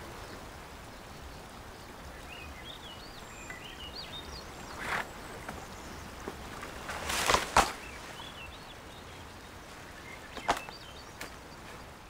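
A few short scraping rustles of a climber against a date palm's rough trunk, the loudest about seven seconds in, over a steady outdoor hiss with small birds chirping now and then.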